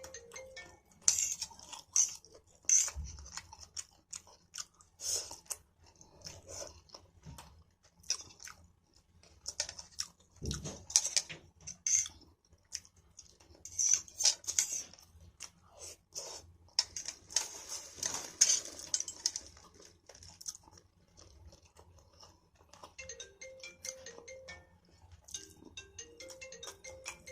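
A person chewing and eating stir-fried pancit canton noodles close to the microphone: irregular wet smacks and crunches come in clusters throughout. Soft background music plays under them.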